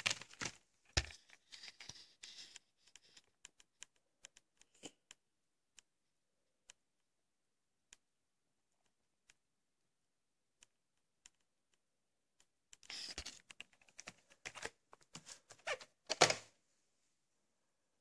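Hard plastic of a VHS clamshell case being handled: clusters of clicks, knocks and rubbing, one in the first couple of seconds and another from about 13 to 16 seconds that ends on the loudest knock, with scattered single clicks between.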